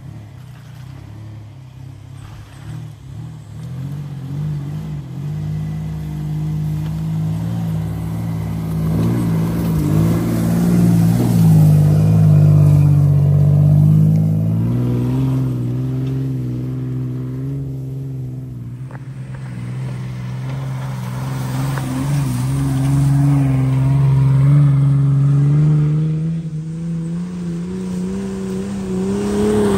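Second-generation Mitsubishi Montero's engine working under load off-road, driving toward a slope. It gets louder over the first dozen seconds. Its revs step up about halfway through and then climb slowly toward the end.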